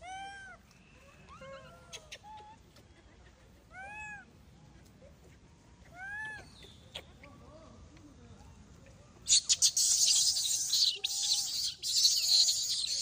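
Young macaque giving short high cries that rise and fall, four of them a couple of seconds apart, then a loud harsh scream for about four seconds near the end.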